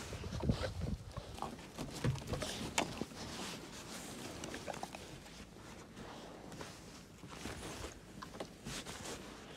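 Close handling sounds from a wolf nosing and mouthing at a gloved hand: rustling of fur and clothing with scattered soft knocks and clicks, a few louder ones in the first three seconds.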